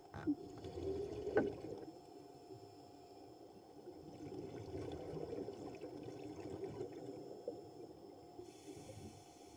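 Muffled underwater noise recorded through a camera housing: a low churning wash with a couple of sharp knocks about a second in, and a burst of hiss near the end.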